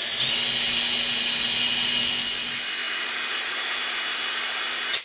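12-volt cordless drill running steadily, drilling a small hole in an OO gauge model locomotive; it cuts off suddenly at the very end.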